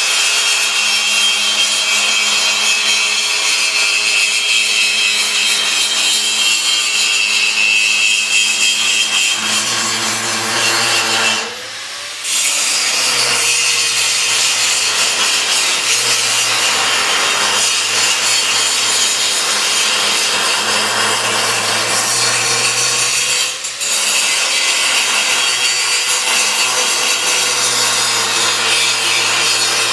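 Electric power tool working metal with a steady abrasive grind. It eases off briefly twice, about twelve seconds in and again near twenty-four seconds, and its motor spins back up in a rising glide each time.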